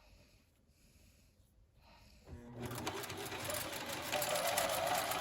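Electric sewing machine running at speed, a fast even clatter that starts about two seconds in and gets louder as the motor picks up.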